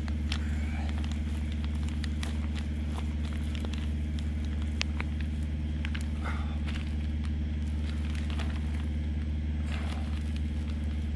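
Steady low background hum with scattered small clicks and crackles from gloved hands twisting securing wire around a resin-soaked fiberglass patch on a plastic-wrapped pipe packer.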